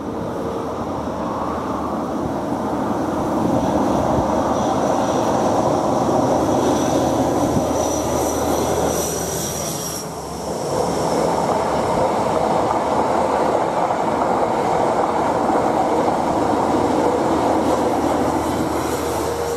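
Class 43 HST power cars' diesel engines passing under power with their Mk3 coaches. The leading power car's engine builds up with a high whistle over it, which drops away about halfway through. The sound then swells again as the rear power car comes by near the end.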